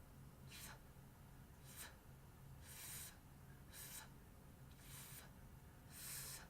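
A woman repeatedly saying the voiceless English /f/ sound on its own: six short, faint, breathy hisses about one a second, with no voice behind them.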